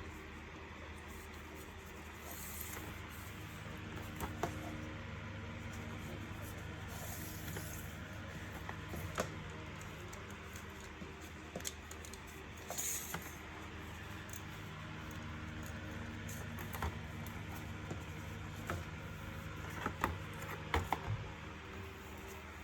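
Scattered light clicks and taps of hand work on small parts, several close together near the end, over a steady low hum.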